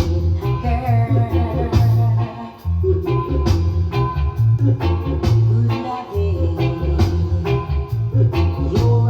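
Reggae music with a heavy bass line and a steady beat; a brief drop in the bass a little before three seconds in.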